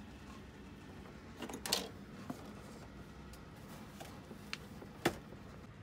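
Handling noise: a few sharp clicks and knocks of hard objects, a quick cluster about a second and a half in and the loudest single click near the end, over a low steady room hum.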